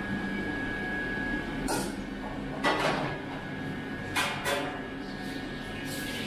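Commercial kitchen noise: a steady hum of the extractor hood and equipment, broken by a few clanks and scrapes of metal utensils and bowls at the griddle, the loudest about three seconds in.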